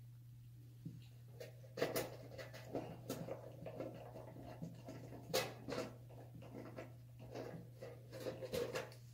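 Irregular scraping, ticking and rustling of hand-tool work, a screwdriver on small screws in a metal shower panel, starting about two seconds in, over a steady low hum.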